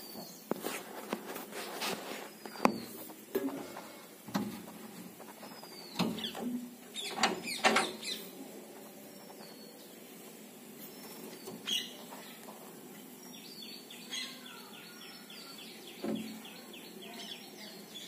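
Rose-ringed (Indian ringneck) parakeets calling with short, sharp, shrill calls at irregular intervals, the loudest in the first half. Later comes a fast run of short repeated notes.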